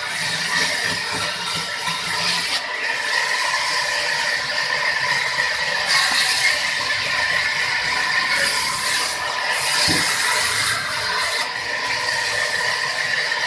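Sawmill saw running and cutting through timber: a steady high whine, with a hissing cutting noise that grows and fades every few seconds.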